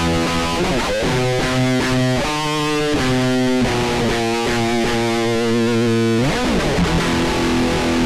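Intro music: distorted electric guitar playing a rock riff, with sliding notes about a second in and again near the end.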